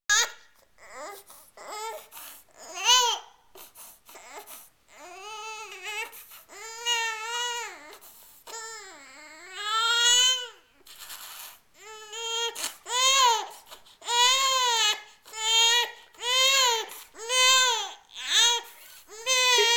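Baby fussing and crying, pitched whines that rise and fall. The cries are soft and scattered at first, then grow into louder wails about once a second through the second half.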